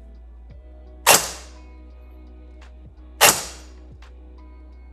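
Two single shots from a Silverback Desert Tech MDR-X airsoft electric rifle (AEG) fired through a chronograph, about two seconds apart, each a sudden crack that dies away within half a second. Background music plays throughout.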